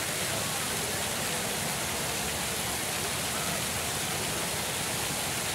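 Public fountain jets splashing steadily, an even rush of falling water with no breaks. Faint voices of people can be heard underneath.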